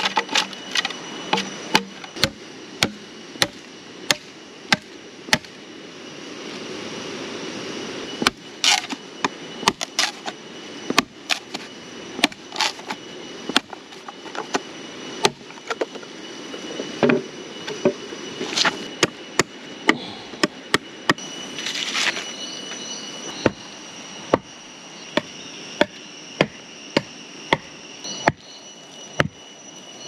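Repeated chopping strikes of a blade into wood, sharp and irregular, about one or two a second, with a steady high insect whine behind.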